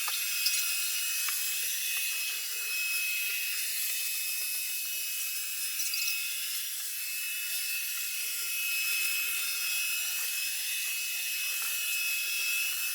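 Robot vacuum cleaner running: a steady high-pitched whine over an even hiss from its motor and suction fan.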